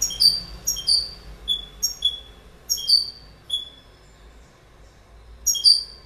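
European goldfinch chirping: a quick run of short, high, downward-slurred notes for about three and a half seconds, a pause, then two more near the end.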